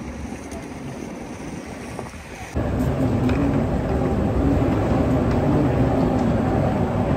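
Street ambience with some wind on the microphone. About two and a half seconds in it cuts abruptly to a louder, steady low rumble of a moving walkway running through a long underground corridor.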